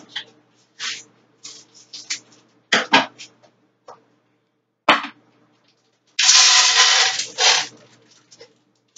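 Chocolate chips pouring from their bag into a blender jar: scattered crinkles and taps from the bag, then a rushing rattle of chips for about a second and a half, starting about six seconds in.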